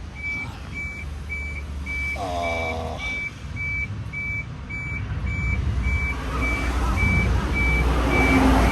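A vehicle's electronic warning beeper sounding steadily, about two beeps a second, over a low steady hum. A short squeal falling in pitch comes about two seconds in, and a rushing noise builds toward the end.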